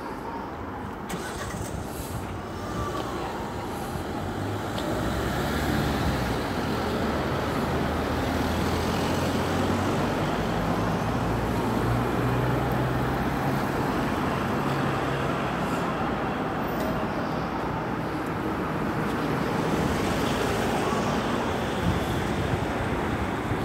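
Road traffic passing on a town street: tyre and engine noise from cars, with a low steady engine hum that builds about five seconds in and fades after about fifteen seconds.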